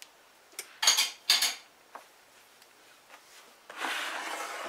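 Two sharp clattering knocks of kitchenware about a second in, then a pink plastic mixing bowl scraping across the kitchen counter near the end.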